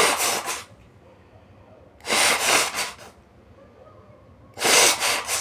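A person forcing air hard out through the nose and mouth in three noisy bursts, each under a second long and about two and a half seconds apart.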